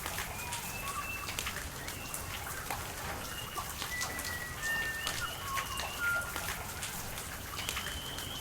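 Rain falling with many sharp drips and splashes, while birds call in short, clear whistled notes at several different pitches.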